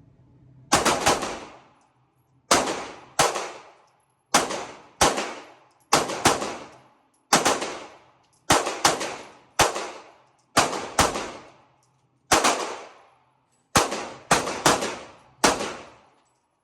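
Pistol shots fired in a steady string, roughly one a second with some quick doubles and triples. Each crack is followed by a short ringing echo.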